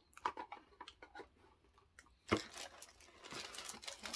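Light clicks and taps as a small cardboard box is handled. About two seconds in comes a sharp knock, then tissue paper crinkles and rustles as hands dig through a packing box.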